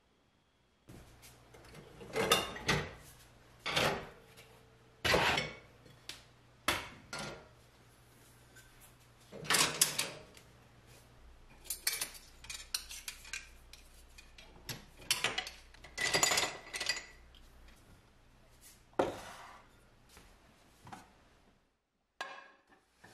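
Kitchenware being handled and put away: an irregular string of clatters, knocks and clinks from pots, lids and utensils.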